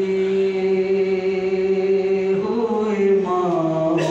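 A man chanting a noha, a Shia lament, into a microphone: he holds one long note for over two seconds, then the melody rises briefly and falls to a lower note near the end.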